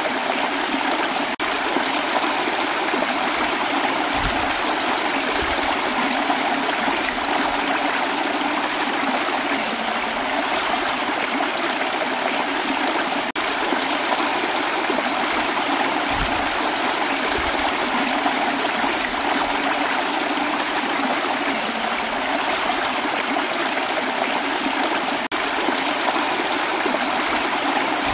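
Shallow rocky stream rushing steadily over stones and small cascades.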